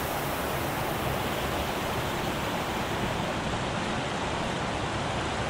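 Mountain creek rushing over rocks: a steady, unbroken rush of water.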